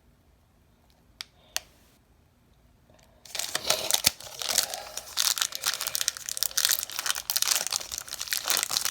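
A baseball card pack's wrapper being torn open and crinkled, a dense crackling that starts about three seconds in, after two faint clicks.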